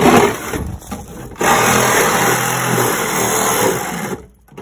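Reciprocating saw cutting through a car's sheet-metal floor pan, running steadily from about a second and a half in and stopping near the end, after a brief loud burst at the start.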